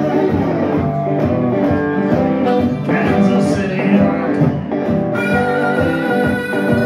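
Live blues band playing acoustic and electric guitar with harmonica, with a long held note near the end.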